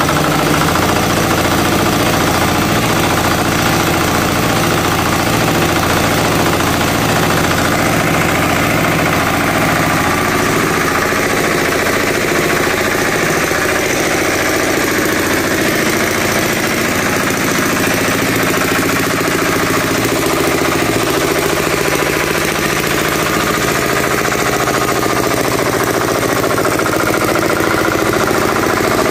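186FAE single-cylinder air-cooled diesel engine idling steadily.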